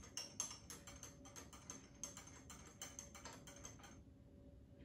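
Metal teaspoon stirring tea in a glass cup, clinking faintly against the side about four or five times a second, then stopping near the end.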